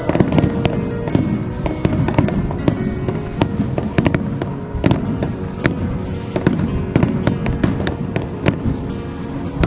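Fireworks bursting in quick succession: a continuous run of sharp bangs and crackles, several a second, with music playing underneath.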